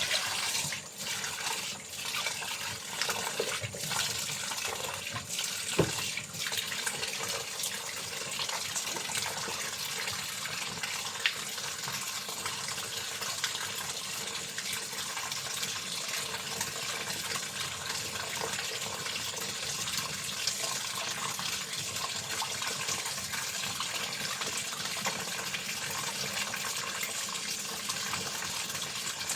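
Water running steadily from a tap, as for washing laundry, with a few knocks and clatters in the first several seconds.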